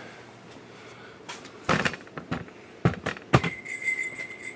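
Workshop handling noise: a few dull knocks and clicks, then a steady high-pitched tone for about a second near the end.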